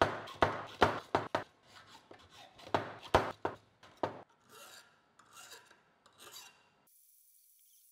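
Hacksaw cutting a metal rod clamped in a bench vise: a run of quick, rasping back-and-forth strokes, giving way after about four seconds to softer scraping strokes.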